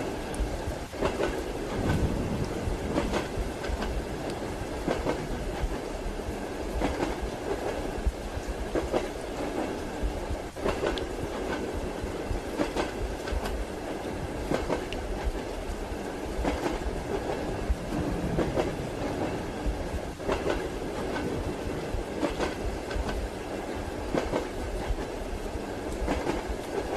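Train running along the track: a continuous rumble with repeated clickety-clack of the wheels over the rail joints.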